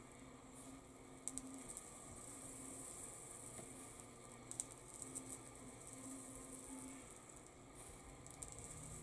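Faint sizzling and crackling as solder melts under a cordless soldering iron tip, in a few short spells, with light ticks from the iron and board being handled.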